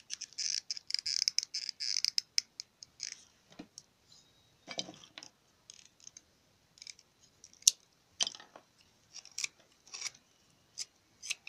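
Small hand tools and wooden bird-call parts being handled at a workbench: a burst of scraping in the first two seconds, then scattered sharp clicks, taps and short scrapes.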